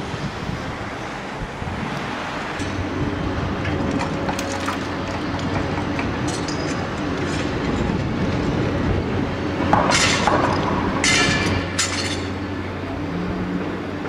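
Construction-site noise: a steady machine hum, with a loud, harsh metallic clatter twice, about ten and eleven seconds in.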